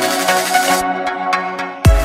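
Electronic dance music: layered synth chords whose high end drops away about a second in, then a heavy bass kick drum comes in near the end.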